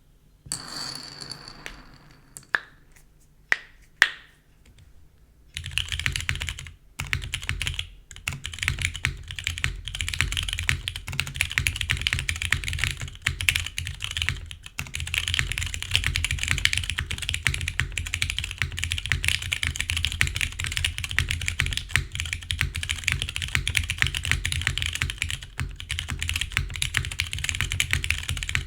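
A few separate sharp clicks, then steady fast typing from about five seconds in, on a Cruel World CW88 mechanical keyboard. The board has tactile Hyperglide MX Brown switches, a polycarbonate plate, a gasket mount and CRP keycaps.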